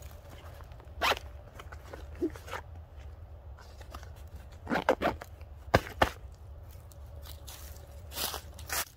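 The zipper on a backpack's front pocket being opened and closed, heard as a few short, sharp zips and rustles of the pack's fabric, clustered about five to six seconds in and again near the end, over a low steady rumble.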